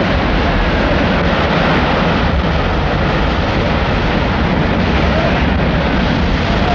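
Tuna thrashing at the surface of a hauled-in trap net, churning the water into a loud, steady rush of splashing.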